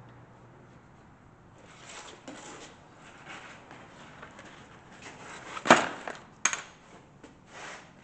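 Workshop handling noises as steel scrap pieces and tools are moved about on a bench while parts are marked out: light scraping and shuffling, a sharp metallic clank a little past halfway, then a smaller knock.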